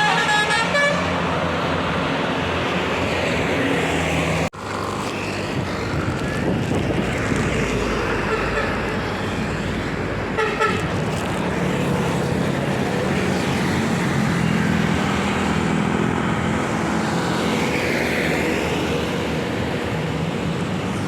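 A bus's multi-tone telolet horn playing a tune of stepped notes that ends about a second in, followed by the steady rumble of bus engines and road traffic. There is a brief dropout about four and a half seconds in and a short horn blip about ten seconds in.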